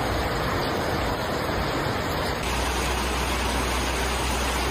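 Fast-flowing muddy floodwater rushing, a loud steady noise that changes character slightly about two and a half seconds in.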